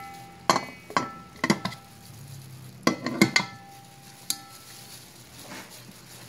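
Tongs clinking against a metal pressure-cooker inner pot as chicken pieces are put in. There are about eight sharp clinks, each with a short ring, in the first four and a half seconds, then quieter handling.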